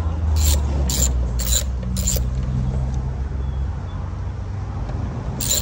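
Hand socket ratchet clicking in a run of sharp clicks as it turns an engine-bay bolt, stopping about two seconds in and starting again near the end. A low, steady engine rumble from a motor vehicle runs underneath.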